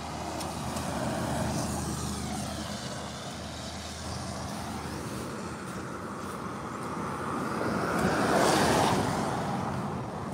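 A car passing on a wet road: its tyre hiss on the wet asphalt swells to a peak near the end and then fades.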